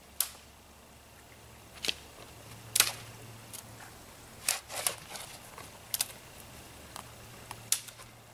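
Dry wood snapping as twigs and the ends of a dead branch are broken off by hand: about eight sharp cracks at irregular intervals, the loudest about three seconds in.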